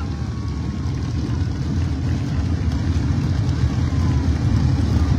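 Steady low rumble of vehicle engines, slowly getting louder.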